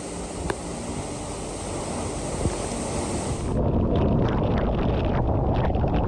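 Typhoon wind and wind-driven rain: a steady rushing hiss. About three and a half seconds in it cuts abruptly to a louder, deeper rumble of wind buffeting the microphone, with car tyres on a wet road.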